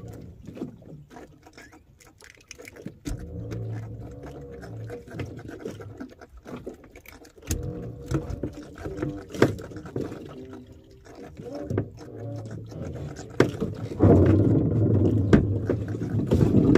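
Fishing handline being hauled in hand over hand aboard a small wooden boat, with many sharp knocks and clicks as the line and gear strike the hull. A low hum comes and goes under it, loudest near the end.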